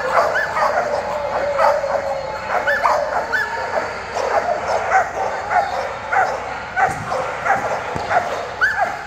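Flyball dogs barking and yipping excitedly at the start of a race: many short, high barks crowd closely one after another and overlap.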